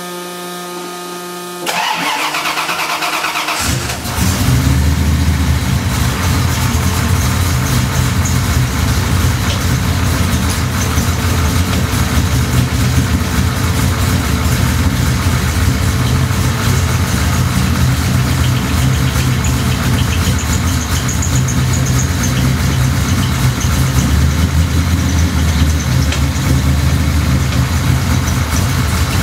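A short steady buzzing tone, then a Ford Mustang engine cranking for about two seconds before it catches about four seconds in and settles into a steady idle. The idle carries a whistling, knocking noise that the owner puts down to a bad lifter.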